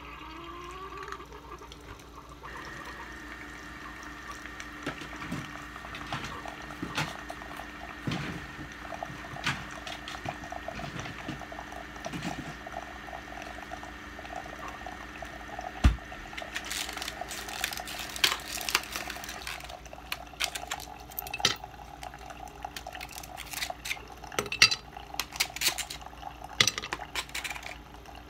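Keurig coffee maker brewing, a steady hum with water running, under frequent clinks and clatter of dishes and ice. The clatter grows busier in the second half, with one sharp knock about halfway through.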